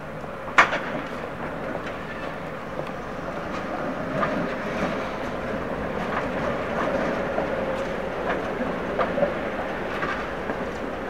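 Coupled pair of Tatra T3 trams passing close by: a steady rumble of steel wheels on rail with a steady whine through the middle of the pass. A sharp click comes about half a second in, and lighter clicks follow as the cars run over the rail joints.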